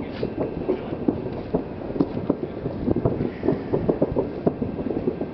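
Fireworks going off across the harbor: a rapid, irregular string of dull pops and thuds over a steady background noise.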